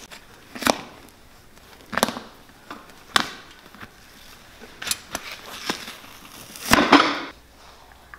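Old rubber Vibram lug outsole being pried and torn off a leather boot sole with pincers: a series of short sharp rips, about five, then a longer, louder tear near the end as a section pulls free.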